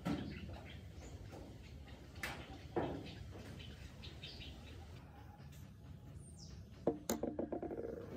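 Light handling knocks from a silver tobacco pipe with a wooden stem, then near the end a sharper knock and a short rattle as the metal pipe is set down on the work surface.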